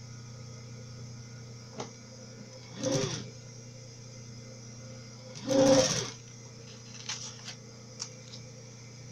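Sewing machine stitching bias binding onto fabric in two short runs, a brief one about three seconds in and a louder one a little before six seconds, each speeding up and slowing down, over a steady low hum. A few light clicks fall between the runs.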